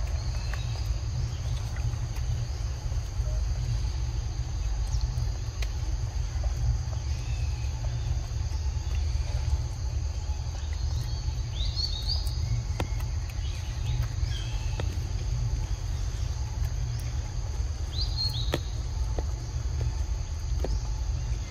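Forest ambience: a steady high insect drone with a few short bird chirps about halfway and again near the end, over a constant low rumble and a few faint clicks.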